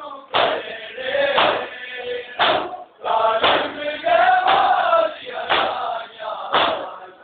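Large group of men chanting a noha, a Shia mourning lament, in unison, punctuated about once a second by a loud collective slap of hands on bare chests (matam) keeping the beat.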